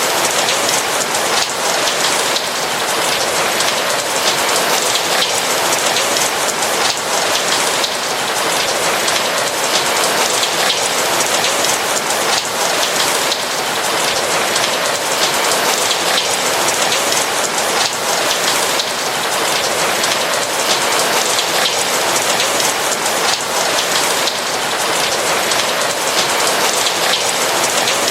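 Steady rain with fine, dense drop patter, even throughout.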